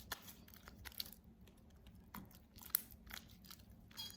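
Sticky glue-and-borax slime being worked by hand on a tabletop: faint, irregular wet clicks and crackles as it pulls and squishes, with one sharper click near the middle. The slime is still sticky and not yet fully activated.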